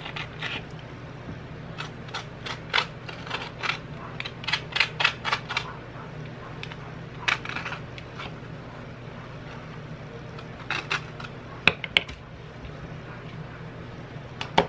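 Green plastic avocado tool scraping and scooping flesh out of an avocado half, heard as a run of short quick scrapes and clicks, with a few more scattered taps later on.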